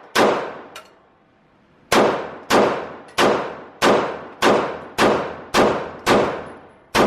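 Pistol shots from a 9mm Glock, each with a ringing tail. There is a single shot at the start, a pause of about a second and a half, then a steady string of eight or nine shots about two a second.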